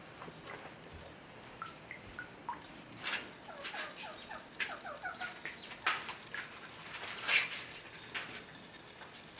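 A bird calls in two runs of short, quick falling notes in the middle, over a steady high insect whine. A few sharp crackles come through, the loudest about seven seconds in.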